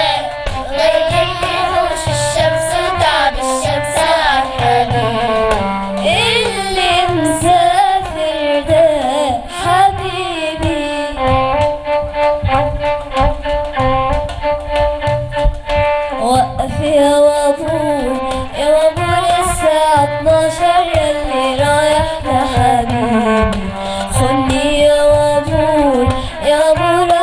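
Violin playing an ornamented instrumental passage of an Arabic song, its melody sliding between notes, over a steady rhythmic accompaniment.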